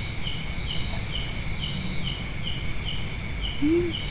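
Night insects: crickets chirping in an even rhythm of about two or three chirps a second, over a continuous high-pitched insect buzz.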